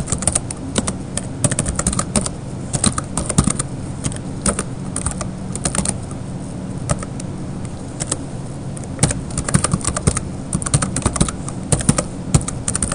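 Typing on a computer keyboard: quick runs of keystrokes with short gaps and a sparser stretch midway, over a low steady hum.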